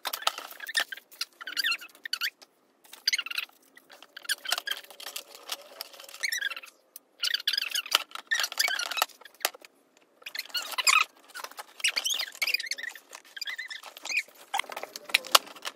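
Fast-forwarded audio of hands assembling a wooden model kit: rapid clicks and rattles of parts being handled, with sped-up voices turned into high, squeaky chatter.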